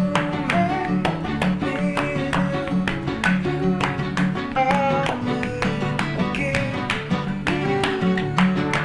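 Music led by guitar, with a steady beat of plucked or strummed strokes under held melody notes.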